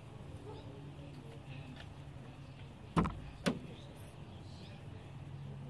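Two sharp knocks about half a second apart, midway through, over a faint steady low hum and a few faint high chirps.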